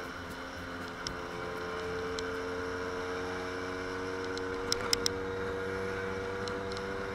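Scooter engine running steadily while cruising, with a few short clicks about five seconds in.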